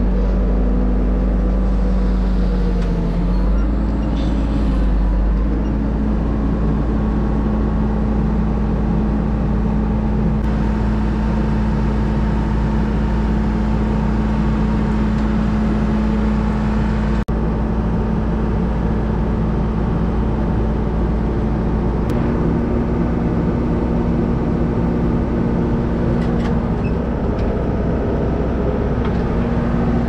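Hepco HLB95B backhoe loader's diesel engine running steadily under working load as the backhoe arm digs, its note shifting slightly a few times, with a single sharp click a little past the middle.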